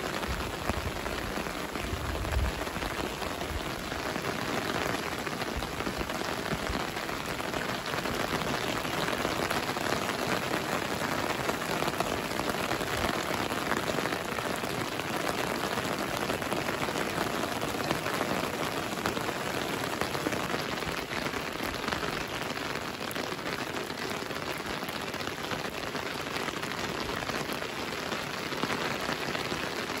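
Steady rain falling on wet ground, plants and pavement: a constant, even patter of raindrops.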